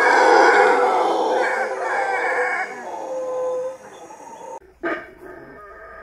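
Howler monkeys howling: a loud chorus of several overlapping howls that fades away about three to four seconds in. After a short break comes a single brief loud call, then quieter howling.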